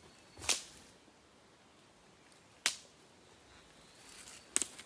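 Three sharp clicks about two seconds apart, the last one doubled.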